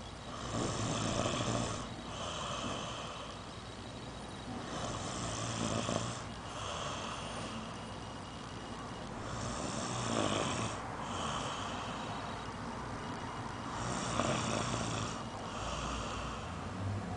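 Snoring: four slow breath cycles about four and a half seconds apart, each a pair of snores close together.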